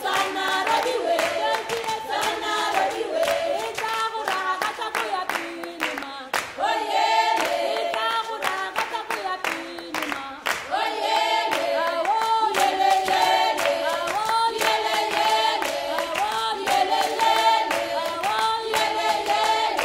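Traditional Tswana choral song: a group of voices singing together, with sharp hand claps through it.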